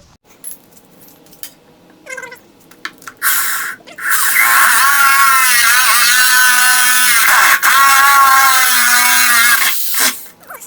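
Electric drill boring holes in wood: a short trigger blip, then about six seconds of steady motor whine whose pitch sags and recovers twice as the bit bites and bogs under load.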